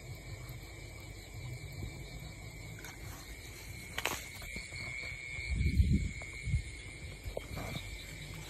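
Night insects calling with a steady high-pitched drone. A sharp click comes about four seconds in, and low thumps from the phone being handled come around six seconds in.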